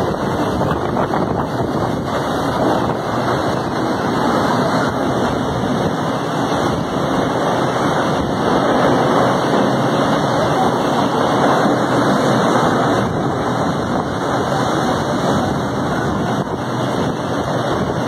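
Strong storm wind blowing as a loud, steady rush of noise, swelling a little in the middle.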